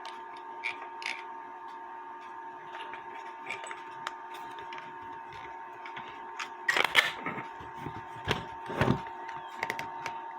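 Small clicks and knocks of metal parts being handled as a grandfather-clock weight is put back together: shell, cap and threaded rod. A cluster of louder knocks comes about seven seconds in, with a few more over the next two seconds, over a steady faint hum.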